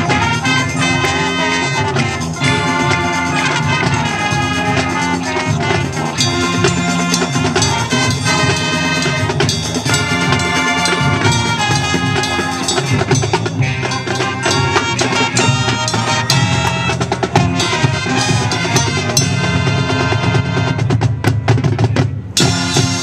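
High school marching band playing: brass over marching drums, with the drums prominent. The music cuts off sharply just before the end.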